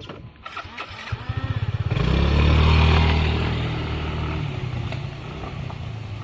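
Motorcycle engine firing in quick pulses, revving up about two seconds in, then running on and slowly getting quieter.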